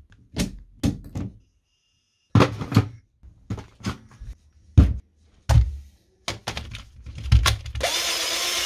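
A string of plastic clicks and knocks from handling a cordless drill and its slide-on battery pack, the pack being taken off and set on a charger. Near the end comes about a second of steady noise.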